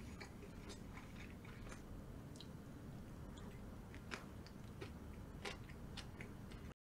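Faint close-up chewing and crunching of crisp fried food, with scattered small crackling clicks. It cuts off abruptly near the end.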